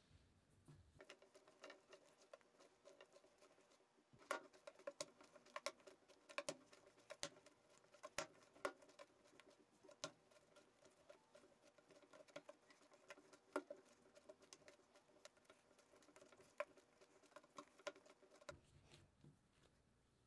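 Enriched bread dough being kneaded by hand on a worktop: an irregular run of soft clicks and slaps, a few a second, starting about a second in and stopping shortly before the end. The dough is still underkneaded, rough and quick to tear, not yet elastic.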